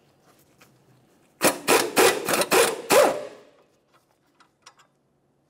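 Socket ratchet loosening a rusted 17 mm ball-joint nut on a lower control arm: a run of about six quick rasping ratchet strokes in under two seconds, then a few faint ticks.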